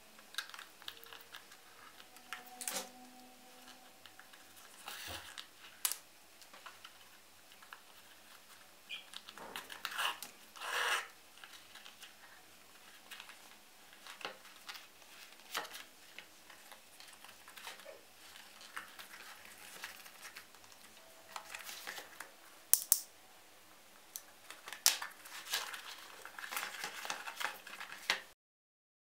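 Leather bag being hand-stitched with thread and needles, then folded and handled: irregular short rustles and rasps of thread and leather, with scattered light clicks and taps. The sound drops out just before the end.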